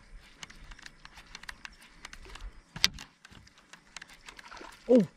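Soft irregular clicks and taps from the boat and fishing tackle during a lure retrieve, with one sharper click about three seconds in. A man's short exclamation comes right at the end.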